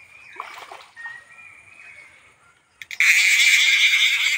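A hooked fish splashing at the water's surface near the bank while it is played on a bamboo pole. It starts suddenly about three seconds in as a loud burst of splashing and lasts over a second.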